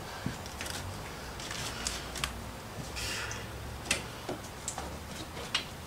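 Scattered sharp metallic clicks and clinks of a ratchet and socket extension working on the spark plugs of a Chevy small-block V8.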